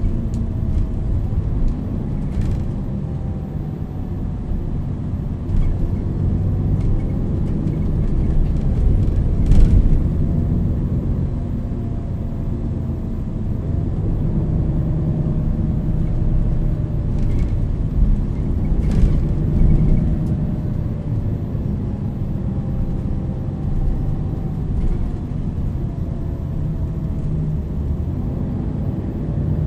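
Inside a MAN NL 323 low-floor city bus under way: steady low diesel engine rumble with a faint whine from the ZF EcoLife automatic gearbox that slowly rises and falls in pitch as the bus speeds up and slows down. Several short knocks and rattles from the body over road bumps.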